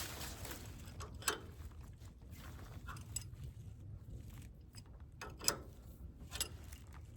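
A few scattered metallic clinks and knocks from handling the backhoe's steel mounting pins and fittings, the clearest about a second in and twice near the end, over a low steady rumble.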